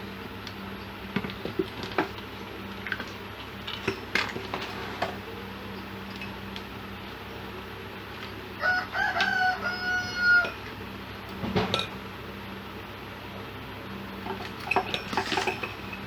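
Scattered small clicks and knocks of tools and parts being handled at a workbench. A rooster crows once in the background, about two seconds long, starting around nine seconds in.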